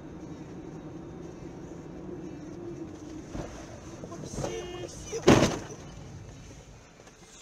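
Car cabin sound picked up by a dashcam: a steady low engine and road hum, with a brief squeak a little after four seconds and then a sudden loud thump about five seconds in, the loudest sound.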